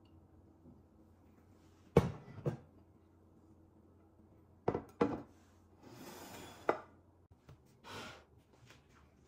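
Kitchenware being handled on a work surface: pairs of sharp knocks about two and five seconds in and a single knock near seven seconds, with a short rustling scrape just before that last knock and another brief rustle near eight seconds.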